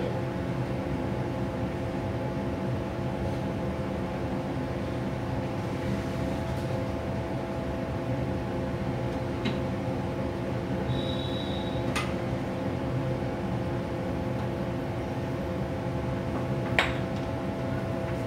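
Steady hum of a CO2 laser engraving machine's fans and pumps while its cutting head stands still, made of several constant low tones. A few sharp clicks come through it, the loudest near the end, with a short high beep about two-thirds of the way in.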